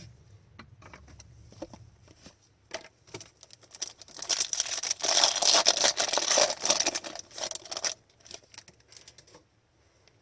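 Trading-card pack wrapper crinkling and tearing open for several seconds, the loudest part, with cards clicking and sliding against each other in the hands before and after.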